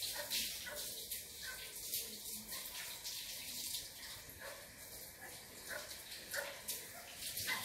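Water running or falling, a steady hiss with a few faint ticks.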